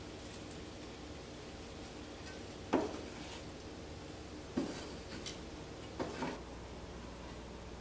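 Wooden spatula knocking and scraping against a stainless steel skillet while stirring cooked vegetables: a sharp knock almost three seconds in, then more around four and a half, five and six seconds, over a faint steady hum.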